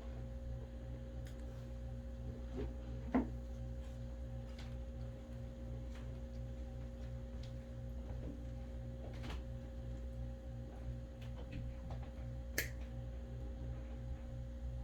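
Steady low hum with a faint regular pulsing, broken by a few isolated small clicks or taps; the loudest comes about three seconds in and another about twelve and a half seconds in.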